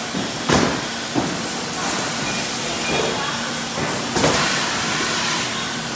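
Bourbon bottling line running, a steady machine noise with glass bottles knocking on the conveyor. The loudest knock comes about half a second in, with a few more later, and there are two stretches of hiss.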